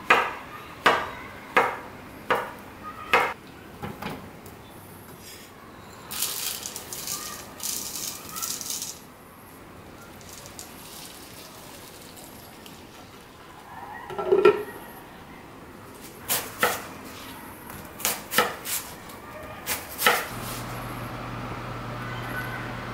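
Kitchen prep: a knife cutting through a banana onto a wooden cutting board, about six sharp knocks in the first four seconds. Then quick oats are poured into a plastic bowl with a rustling rattle, and soy milk is poured in. Scattered clatters and clicks of dishes follow. A low steady hum starts near the end.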